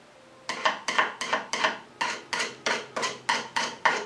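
Steel screwdriver shaft struck repeatedly against the steel edge of a 2.5-inch paint scraper blade. It makes quick metallic clicks, about four a second, starting about half a second in. This is burnishing off the burr left on the blade's edge.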